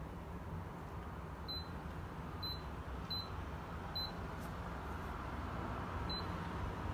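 Schlage Z-Wave Connect deadbolt's keypad beeping five times at uneven intervals as the programming code is keyed in, to put the lock into programming mode for pairing.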